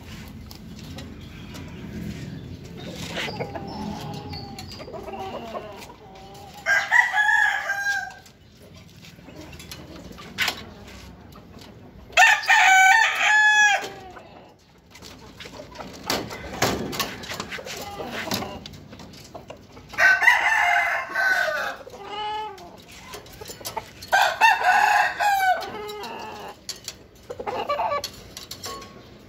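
Roosters crowing four times, each crow long and loud, several seconds apart. Between the crows come light knocks and clatter from the aluminum folding cage panels being handled.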